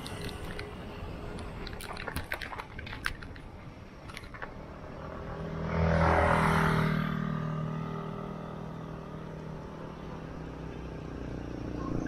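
A motor vehicle passing close by on the road, its engine swelling to a peak about six seconds in and then fading, over steady road and wind noise. A run of sharp ticks comes before it.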